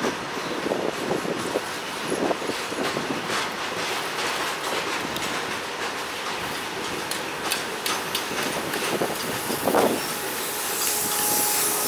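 Rajdhani Express hauled by a WAP-4 electric locomotive approaching at speed: a steady rushing rail noise with many wheel clicks, growing louder near the end.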